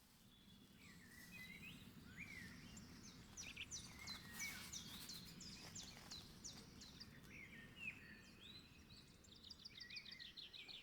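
Faint birds chirping: short rising and falling calls, with a quick run of rapid repeated notes near the end, over a low steady background noise.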